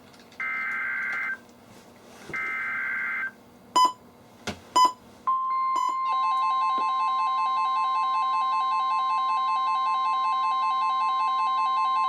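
NOAA Weather Radio SAME alert header: two harsh digital data bursts about a second long, then a few short clicks, then the steady 1050 Hz warning alarm tone. About six seconds in, a fast pulsing, warbling alert beep from a weather-alert receiver joins it. The tone signals a new warning coming: here a tornado warning.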